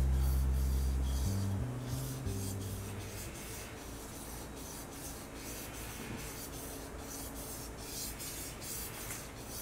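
Forged kitchen knife stroked back and forth on a wet whetstone, a steady run of scraping strokes as one face of the edge is ground toward a burr. Background music fades out over the first few seconds.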